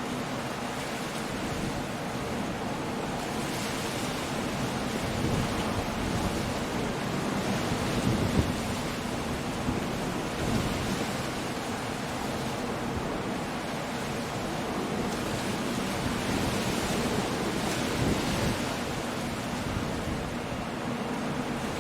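Coastal storm: heavy surf breaking against cliffs with wind and rain, a continuous rushing noise that swells in surges every few seconds, loudest about eight seconds in.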